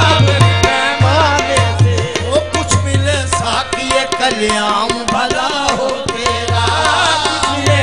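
Qawwali music: tabla drumming a steady beat under a wavering melody line. The deep drum strokes drop out for a few seconds midway, then return.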